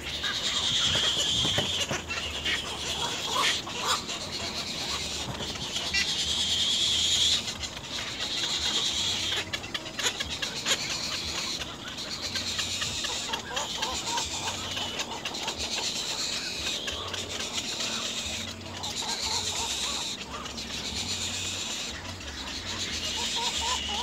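Little egret nestlings begging at the nest: a continuous high-pitched rapid chatter that swells and fades every second or two.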